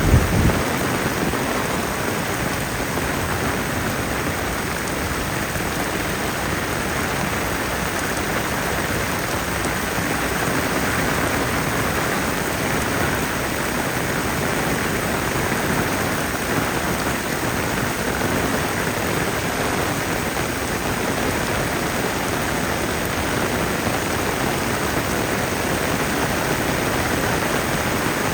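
Heavy rain falling steadily, an even rushing hiss that holds level throughout, with a brief low thump right at the start.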